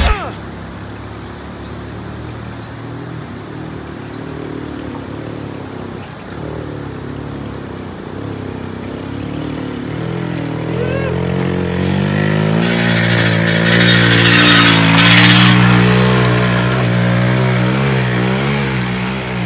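Small single-cylinder monkey-bike engine approaching up a rocky gravel track. It is faint at first, then grows louder from about ten seconds in, its pitch rising and falling with the throttle. As it comes closest there is a loud rush of noise from the tyres on the loose gravel.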